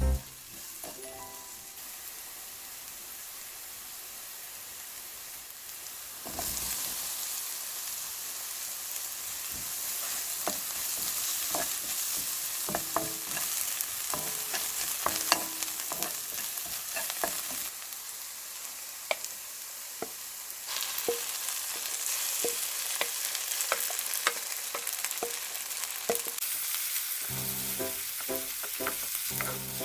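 Food sizzling in hot oil in a frying pan while it is stir-fried, with a spatula clicking and scraping against the pan. The sizzle grows suddenly louder about six seconds in.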